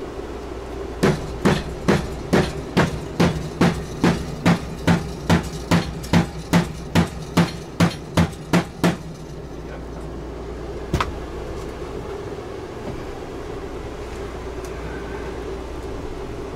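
Hammer blows: a steady run of about nineteen even strikes, a little over two a second, then a pause and one more strike. A steady low hum runs underneath.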